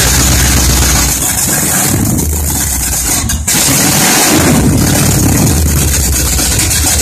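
1969 Chevrolet Camaro COPO's big-block V8 running at idle through its exhaust. The note changes briefly about three and a half seconds in, then settles back to a steady idle.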